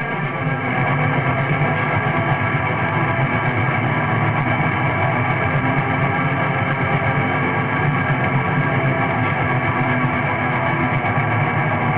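Raw, lo-fi black metal: a dense, unbroken wall of distorted guitar and bass that fills out about half a second in, dull and muffled with no top end.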